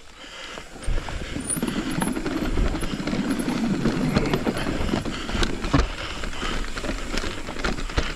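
Mountain bike rolling fast down a dirt trail: steady tyre noise on dirt and gravel, with the bike clattering over roots and bumps and several sharp knocks in the second half.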